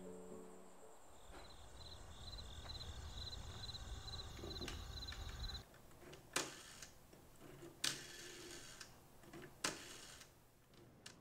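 Black rotary telephone being dialled: quiet ticking, then three sharp clicks about a second and a half apart as the dial is turned and released.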